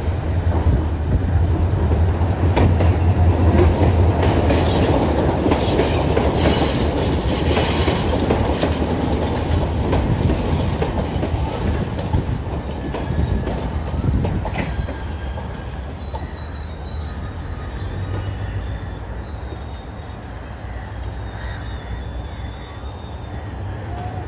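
Passenger train rolling past on a curved track. There is a heavy low rumble for the first ten seconds or so. After that the coaches run by with wheel clatter, a few knocks, and a thin high wheel squeal from the curve, easing slightly in loudness toward the end.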